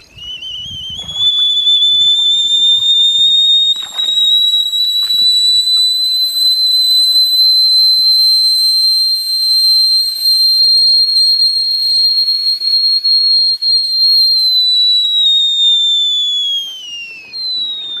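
Stainless-steel camp kettle whistling at the boil, steam jetting from its spout: a loud, high, steady whistle that rises slightly as it starts, holds, then falls in pitch and stops near the end.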